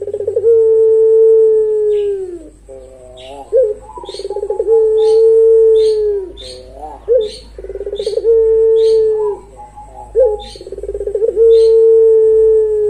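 Puter pelung, a long-voiced ringneck (Barbary) dove, cooing: four long coos, each opening with a short note and a quick stuttering run, then a long steady tone that falls away at the end. Faint high chirps tick along in the background.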